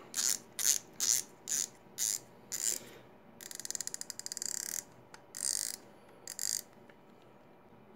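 Front drag of a Shimano Stella SW4000XG spinning reel being turned by hand, its clicker ticking about twice a second, then a quick run of rapid clicks a little past three seconds in, and a few last clicks.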